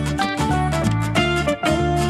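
Upbeat background music with plucked guitar and a steady bass beat.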